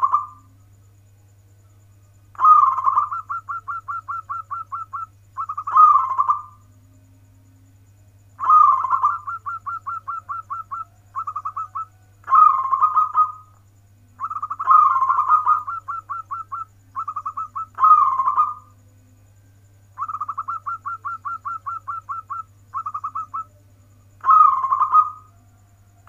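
Local-type zebra dove (perkutut) cooing in song: phrase after phrase, each a loud coo followed by a fast run of short staccato notes at about five a second. A steady low hum runs underneath.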